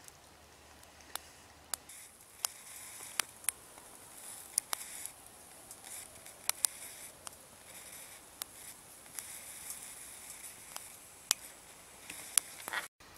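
Small wood fire of twigs crackling in a compact twig stove, with irregular sharp pops over a faint steady hiss.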